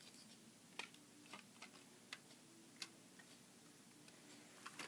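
Near silence broken by a few faint, irregular clicks of plastic Lego pieces being handled.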